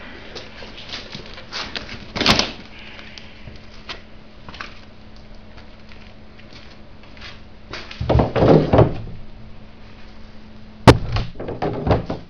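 Knocks and thumps of a large cardboard box being set down and handled on a concrete floor. There is one thump early, a cluster of them about eight seconds in, and a sharp loud knock near the end. A faint steady hum runs underneath.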